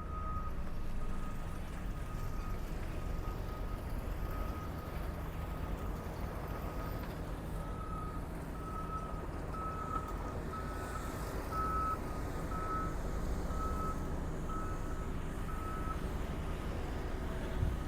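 Reversing alarm of a heavy construction vehicle, a single-pitched beep repeating about once a second and growing louder past the middle, over the low rumble of its diesel engine.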